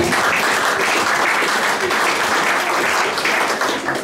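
Audience applauding, stopping suddenly at the end.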